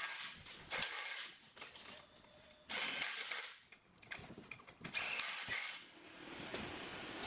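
Cordless drill/driver running bolts in, in a few short bursts with pauses between them, as skids are fastened to the base of a pump engine.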